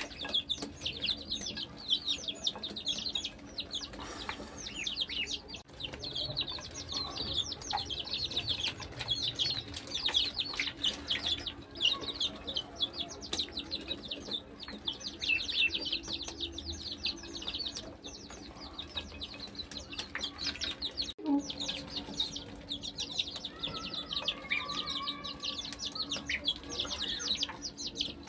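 A crowd of ducklings and chicks peeping nonstop while feeding: a dense stream of rapid, high, falling chirps, many birds calling at once.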